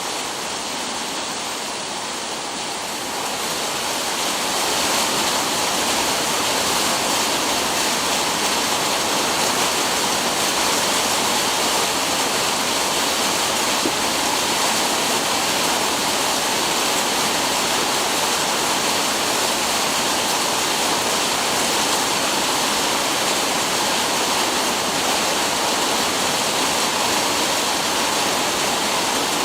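Heavy rain falling, a steady rushing hiss of water that grows slightly louder about four seconds in.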